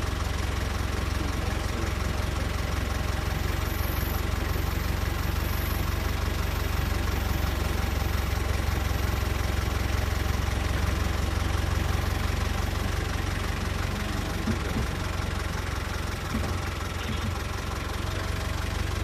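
Safari vehicle's engine running steadily, a low, even hum.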